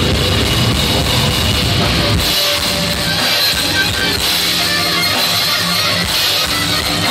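Live heavy rock band playing loud: electric guitars and a drum kit. About two seconds in the heavy low end drops away, leaving mostly sustained guitar.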